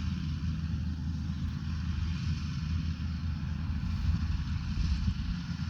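Rice combine harvester working, a steady low engine drone with an even higher-pitched mechanical whirr over it.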